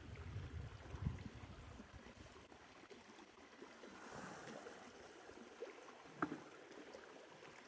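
Faint running creek water, with a low rumble in the first second and a few light knocks, the clearest about six seconds in.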